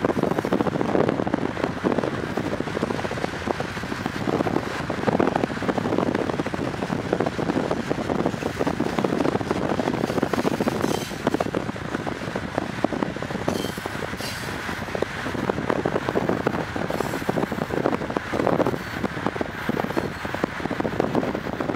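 Freight train cars (tank cars, covered hoppers and boxcars) rolling past at speed: a steady rumble of steel wheels on rail with dense clattering, mixed with wind noise.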